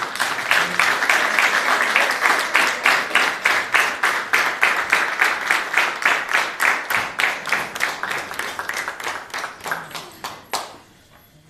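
A roomful of diners applauding, the claps falling into an even beat, dying away a little before the end.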